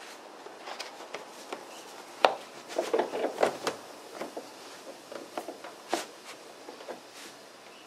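Hands pressing the plastic, felt-covered intake duct panel into place under the hood: a series of knocks and clicks of plastic against the hood frame, the sharpest about two seconds in, a quick flurry around three seconds, and another sharp click about six seconds in.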